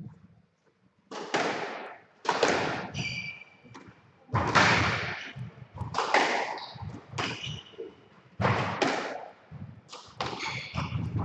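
A squash rally: the ball cracks off the racket and smacks the walls about once a second, each hit echoing around the enclosed court. Short high squeaks of shoes on the wooden floor come in twice.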